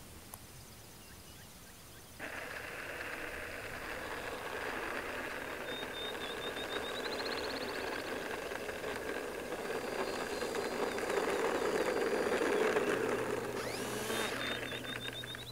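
Electric motor and propeller of a 1.1 m foam RC Cessna 400 model running on a 3-cell LiPo as it rolls along an asphalt runway. The sound starts suddenly about two seconds in, grows steadily louder to its peak near the end, then eases off.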